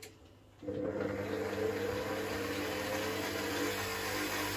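Electric kneading machine's motor switching on about half a second in and running steadily with a hum, kneading bread dough.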